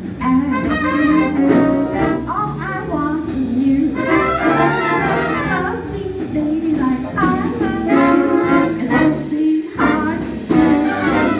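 Swing band playing a jazz tune, with horns and saxophones among the instruments.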